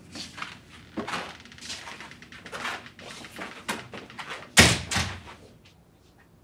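A run of knocks and scuffing thuds, then one loud sudden bang about four and a half seconds in that dies away over about a second.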